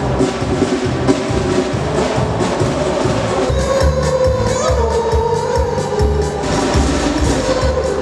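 Live band music: trumpets and clay horns play a held melody over a repeating bass drum beat.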